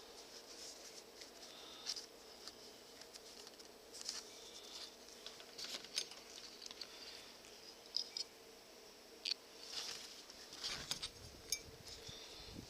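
Leather mitt pieces being handled and lined up by hand: soft scuffing and rustling of the leather with scattered small clicks, a few of them sharper.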